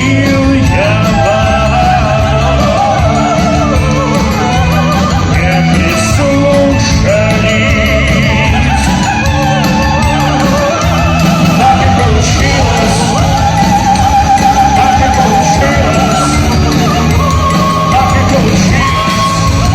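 A live band playing a song, with a singer holding long notes with wide vibrato over the band.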